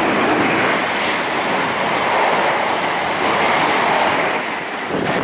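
A train passing close at speed: a loud, steady rushing noise of wheels and air that eases slightly near the end.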